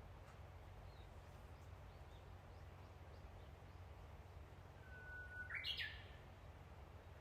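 A bird calling once, about five and a half seconds in: a short held whistle that leaps up to a higher, quick note. A few faint chirps come earlier, over a low steady hum.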